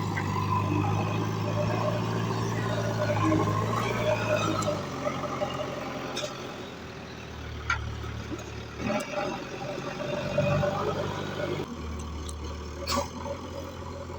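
Heavy diesel engines running steadily, their note dropping about five seconds in and shifting again near nine and twelve seconds, with a few short knocks and clanks.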